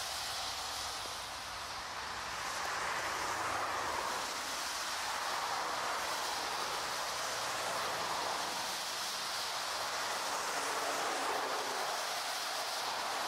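Twin-engine jet airliner at takeoff thrust on its takeoff roll down a wet runway: a steady rush of engine noise mixed with the hiss of spray thrown up by the tyres. The sound dips briefly about a second and a half in, then swells again.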